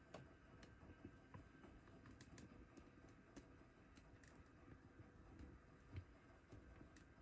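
Near silence: quiet room tone with faint, scattered small clicks.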